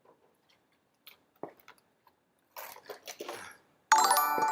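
A few faint clicks and handling noises, then near the end a sudden loud electronic chime of several steady ringing tones: a live-stream subscriber alert.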